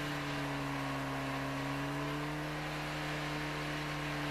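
Asphalt paver's diesel engine running at a steady speed, a constant even hum that holds the same pitch throughout.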